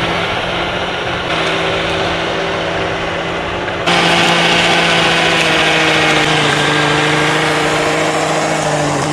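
Steady whine of an RC snowblower's brushed electric motor (a Traxxas 21T) spinning the auger and impeller, mixed with the TRX6 6x6 truck's drivetrain. The whine gets suddenly louder about four seconds in, when the blower is cutting into a snowbank. Its pitch sags slightly near the end.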